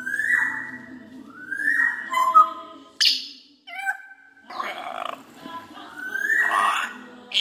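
African grey parrot whistling the same short phrase three times, each rising to a held high note and then dropping. Between the whistles it gives a sharp loud squawk and a rougher, noisier call.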